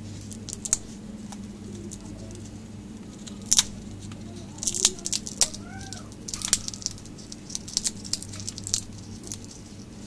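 African grey parrot cracking and crunching the shell of a monkey nut with its beak: irregular sharp cracks and crackles, a few early on and clustered more densely through the second half.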